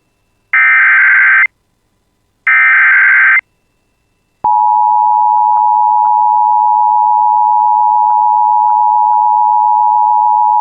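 Emergency Alert System alert: the last two of the three SAME digital header bursts, harsh buzzing data bursts each just under a second long, a second apart. After a short gap, the loud, steady EAS attention tone starts about four and a half seconds in and holds.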